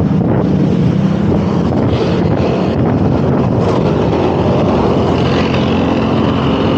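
Heavy wind buffeting the microphone of a rider moving at speed, mixed with the steady running of motor traffic close by.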